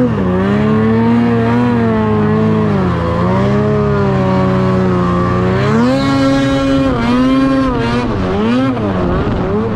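Ski-Doo Summit X 800R E-TEC snowmobile's two-stroke twin engine running under changing throttle, its pitch rising and falling. It revs up sharply about six seconds in and drops back about two seconds later.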